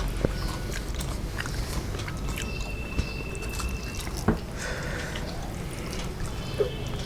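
Close-miked eating: chewing and small wet mouth clicks, with a few sharper ticks. A faint high steady tone runs for about a second and a half midway.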